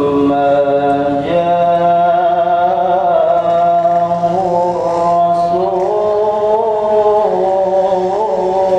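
A male voice reciting the Qur'an in the melodic tilawah style, drawing out long held notes with wavering ornaments; the pitch steps up about a second in and is then sustained for several seconds.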